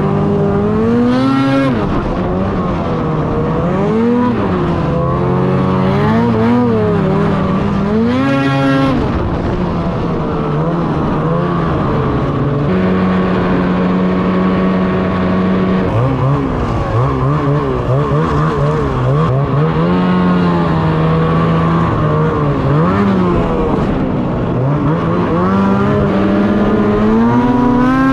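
Ski-Doo Summit X 800R E-TEC two-stroke twin snowmobile engine being revved, its pitch swelling up and dropping back again and again, with a steadier stretch near the middle.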